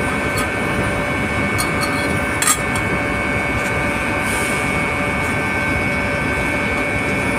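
Pumping-plant machinery running steadily: a constant drone with several high, steady whining tones over it. A single sharp metallic click comes about two and a half seconds in.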